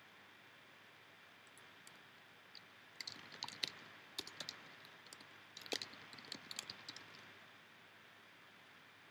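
Typing and clicking on a computer keyboard: a run of quick, uneven clicks starting about three seconds in and lasting around four seconds, over a steady faint hiss.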